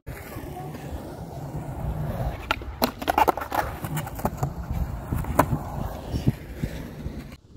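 Skateboard wheels rolling on concrete with a steady low rumble, and several sharp clacks of the board, clustered about three seconds in, with single clacks later.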